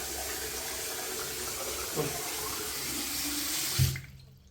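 Bathroom sink tap running into the basin as a test of whether the freshly cleared drain now takes the water. The flow stops abruptly just after a short knock near the end.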